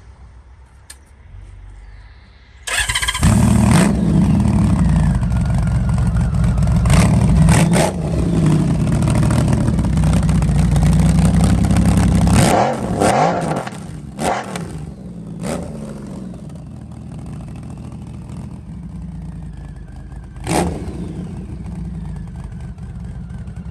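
Honda Valkyrie F6C's 1520 cc flat-six, breathing through a Cobra sport exhaust with dB killers fitted, starts up about three seconds in and runs loud. Its throttle is blipped sharply several times before it settles to a lower, steady idle.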